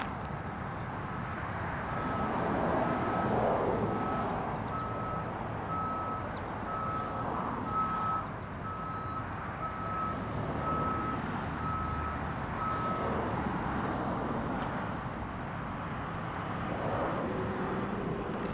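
A vehicle's reversing alarm beeping steadily, about one beep a second, over a running engine. The beeping starts about two seconds in and stops a few seconds before the end.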